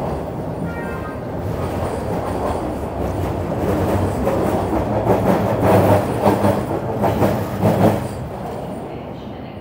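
TTC Line 1 subway train pulling out of the platform: a steady rumble, then a quick run of wheel clacks over the rail joints, loudest about halfway through and easing off near the end.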